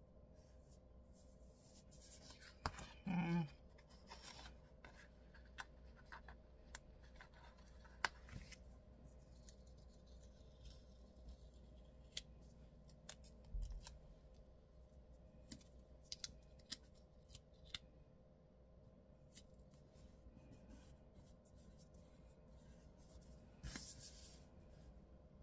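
Faint paper handling: planner pages and stickers shifted about by hand. Scattered small clicks and rustles, with a louder rustle about three seconds in and another near the end.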